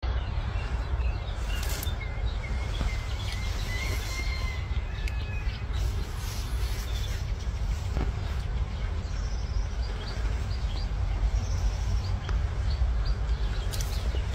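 Small birds chirping now and then, with a short trill early on, over a steady low rumble.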